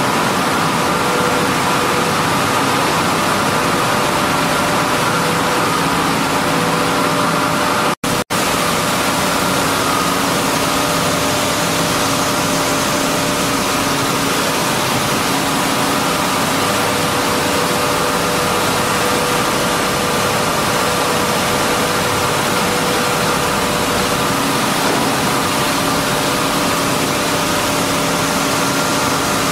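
Millet milling plant machinery running: a steady, loud mechanical din with a few steady hum tones. The sound cuts out twice, very briefly, about eight seconds in.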